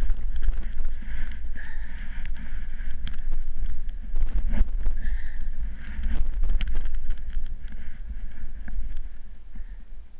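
Snowboard sliding and carving through powder snow, a hissing swish that swells and fades with each turn, under heavy wind buffeting on a helmet-mounted action camera's microphone, with scattered sharp clicks.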